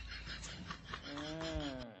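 A husky's drawn-out moaning whine, one call about a second in that rises and then falls in pitch. Before it comes a quick run of faint, regular scratchy ticks.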